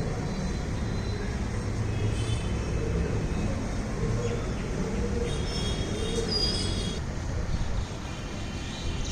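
Loud, steady rumbling din of the temple ceremony, with high ringing tones now and then, about two seconds in and again from about five to seven seconds in.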